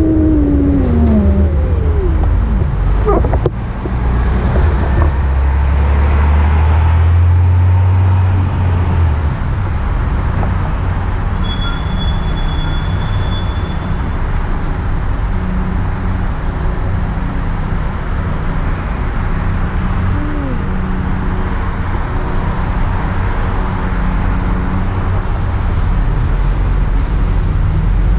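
Road and traffic noise heard from a moving e-bike on wet streets: a steady rush with a heavy low rumble for the first several seconds, and a whine falling in pitch at the very start.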